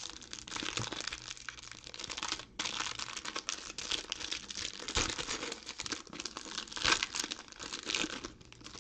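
Clear plastic wrapper of a basketball trading card pack crinkling as hands work it open, a steady crackle with the loudest bursts about five and seven seconds in.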